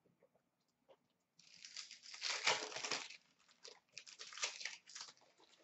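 Upper Deck SP Authentic hockey card pack wrapper crinkling as it is torn open by hand, starting about a second and a half in and loudest about two and a half seconds in, followed by more crackling as the cards are pulled out.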